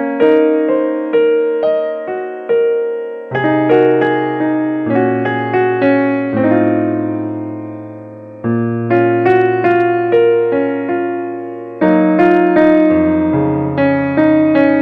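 Background piano music: a slow melody over chords, each note struck and fading, with low bass notes joining a few seconds in.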